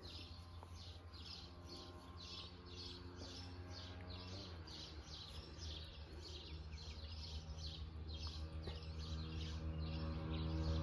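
A bird repeating the same short high call over and over, about two to three times a second, over a faint steady low hum.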